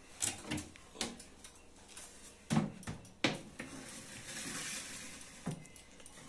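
Kitchen clatter of a metal baking tray and oven being handled as a tray of semolina dessert goes into the oven: five or so sharp clanks and knocks spread over several seconds, with a soft hiss between them.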